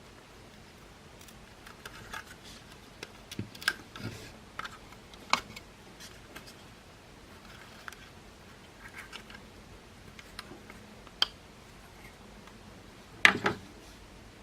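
Plastic parts of a Makita CL108FD cordless vacuum cleaner being handled during disassembly: scattered light clicks and taps, with a louder double knock near the end.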